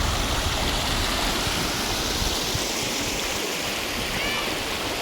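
Steady rush of flowing water from a river or stream, with a heavier low rumble in the first half.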